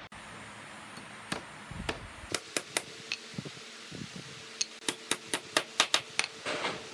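Claw hammer driving a hand-held nail into the top rail of a wooden panel: a few spaced taps to start it, then a quicker run of sharp strikes, about three a second, more than a dozen in all.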